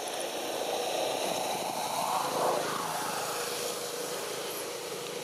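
A distant engine passing by, swelling to its loudest about two and a half seconds in and then fading.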